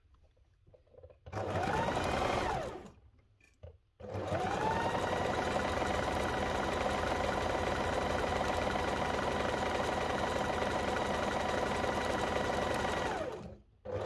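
Electric sewing machine stitching through layered cotton fabric and batting. A short run a little over a second in is followed, after a pause, by a long steady run of about nine seconds. The motor whine rises as it speeds up and falls away as it stops.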